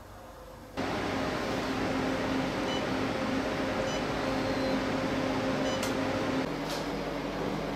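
Nubway NBW CL218 fat-freezing machine running: a steady fan-and-cooling hum that starts abruptly about a second in. A few faint short beeps come as its touchscreen is pressed, and the hum shifts lower near the end.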